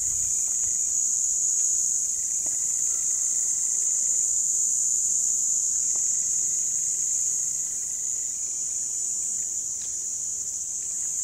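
Steady, high-pitched chorus of insects buzzing in dry hillside scrub.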